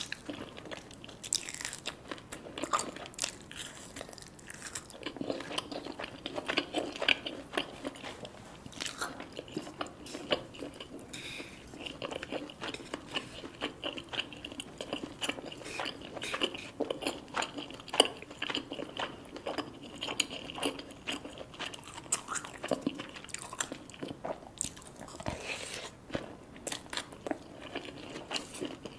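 Close-miked eating: biting, crunching and chewing food in many irregular small crackles and clicks.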